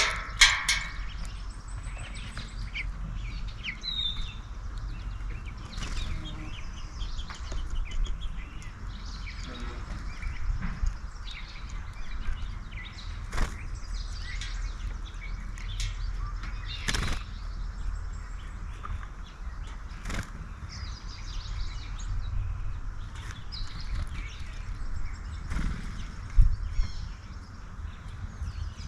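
Backyard songbirds chirping in short, scattered calls, with a few sharp knocks over a steady low rumble.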